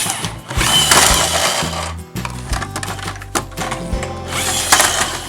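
Background music, over which a toy vehicle whirs twice in loud noisy bursts, about a second in and again near the end.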